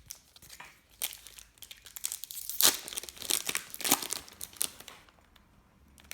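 A trading card pack's wrapper being torn open and crinkled: a run of crackling bursts starting about a second in, loudest around the middle, and dying away near the end.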